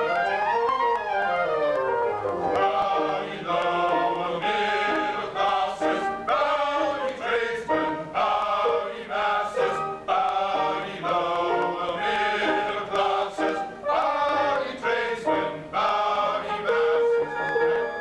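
Operetta chorus singing together with instrumental accompaniment, live on stage.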